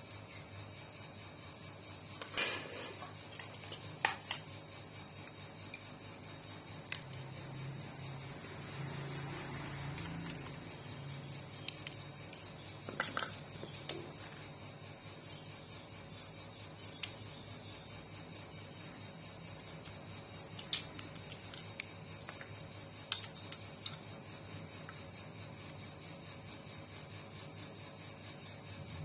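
Scattered metallic clinks and knocks of tools and small metal parts being handled during sewing machine repair work, over a faint low hum.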